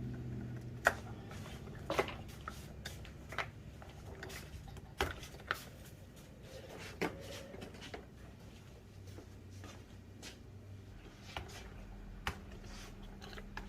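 Scattered sharp clicks and light knocks, about a dozen at irregular intervals, from small parts and tubing being handled while an Ampico player-piano stack is taken apart.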